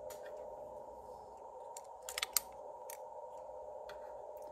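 Small sharp clicks and scrapes of a cable connector being worked onto header pins on a radio's circuit board, with a short cluster of louder clicks about two seconds in, over a steady faint hum.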